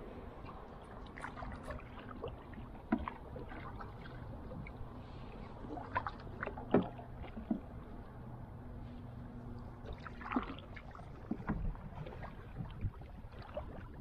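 Canoe being paddled: paddle strokes in the water with irregular splashes and knocks.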